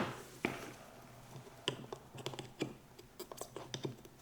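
Scattered small clicks and taps of metal tools and axle hardware as a wheel is worked into an off-ice skate's frame, with a tighter cluster of clicks near the end.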